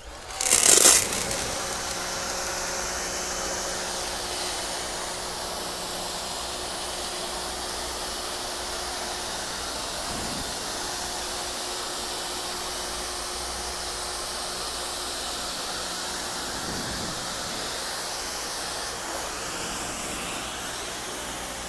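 A new Rock & Rocker 3000 PSI electric pressure washer running, its jet spraying against a garage door: a steady hiss of water with the motor and pump humming underneath. A loud burst of spray comes about a second in, then the sound holds level.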